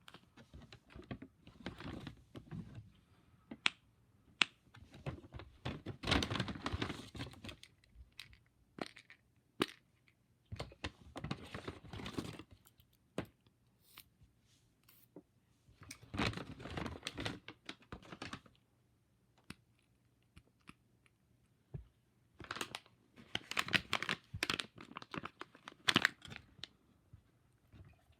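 Packaging being handled and torn open, crinkling in bursts of a second or two, with scattered sharp clicks and taps between them.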